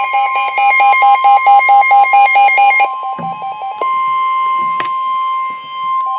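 Synthesized emergency-alert attention tones: a steady high tone under a fast, evenly repeating electronic beeping. About three seconds in, the beeping drops in level and changes pattern, with one sharp click later on.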